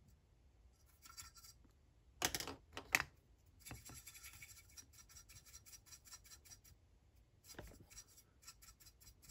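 Faint, quick scratching of a stiff-bristled brush scrubbing weathering powder onto a plastic HO-scale tank car, with a couple of louder sharp knocks about two to three seconds in.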